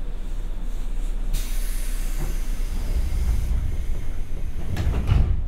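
Compressed air hissing aboard a stopped JR West 201-series electric train, starting suddenly about a second in and cutting off sharply near the end. Just before the hiss stops come heavy low thuds, the loudest moment, over the car's steady low hum.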